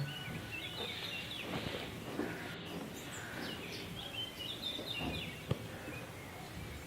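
Small birds chirping repeatedly in the background, with a single sharp click about five and a half seconds in.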